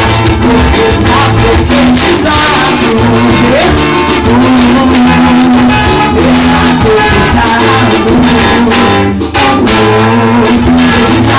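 Gospel band music playing loudly and steadily, with singing in the mix.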